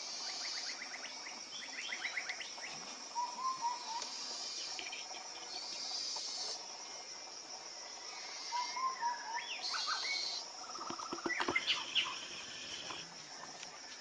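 Tropical forest ambience: insects shrill in a high steady drone that starts and stops in spells, while birds chirp and trill, with a busier cluster of calls about eleven seconds in.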